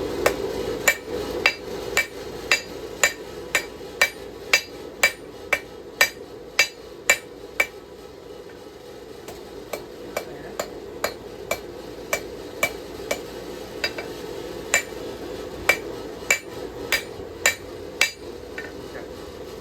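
Hand hammer striking hot knife steel on an anvil, forging the blade's edge: a steady rhythm of about two sharp blows a second, lighter for a few seconds in the middle, then heavier again before stopping near the end.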